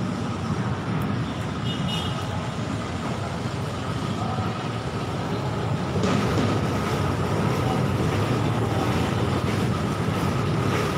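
Steady low rumble of city traffic, stepping up in level about six seconds in, with a faint steady high tone running through it.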